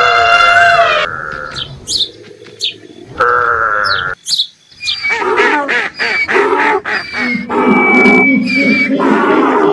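A run of different animal calls, one after another. A long pitched call opens, short high chirps and a steady call follow, and from about halfway a dense stretch of overlapping cries runs on.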